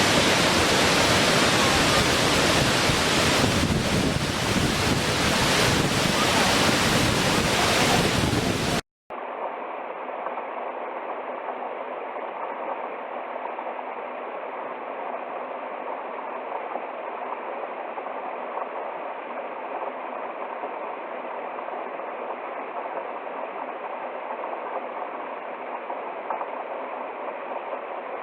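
Waterfall's rushing water, a loud steady roar that cuts off abruptly about nine seconds in and gives way to a quieter, duller and steady rush of falling water.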